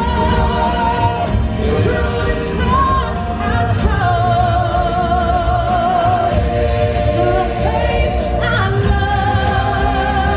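Live stage-show singing: solo and group voices holding long notes with vibrato over a backing track with a steady beat.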